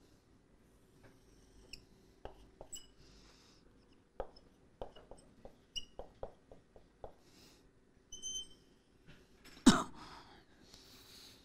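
Whiteboard marker squeaking and tapping against the board as a graph's axes, labels and curve are drawn, with a run of quick ticks in the middle. A sudden loud thump comes near the end, followed by a short hiss.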